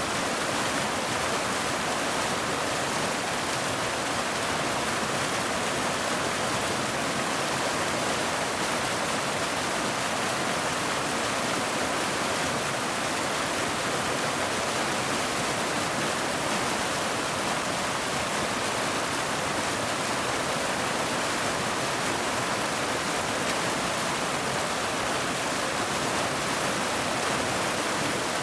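Waterfall: the steady, unbroken rush of falling water, a constant hiss with most of its weight in the middle and high range.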